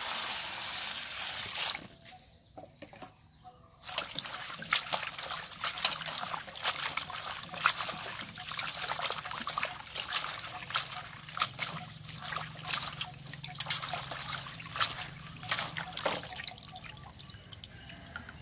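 Water poured into a metal basin of herbs and vegetables for about two seconds. After a short pause, hands swish and splash the greens about in the water with irregular sloshing, then lift them out dripping near the end.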